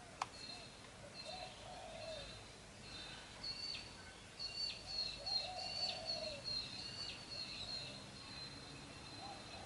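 Small birds chirping in quick repeated high notes, with a few low cooing calls of a pigeon or dove among them. There is a single sharp click just after the start.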